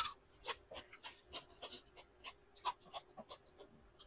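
Close-up eating sounds: wet chewing and lip smacks on a mouthful of rice and fish curry, about three a second, picked up by a clip-on microphone on the eater's shirt.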